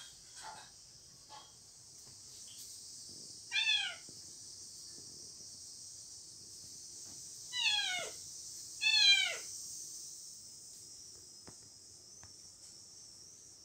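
A cat meowing three times, each meow short and falling in pitch: once a few seconds in, then twice in quick succession a few seconds later.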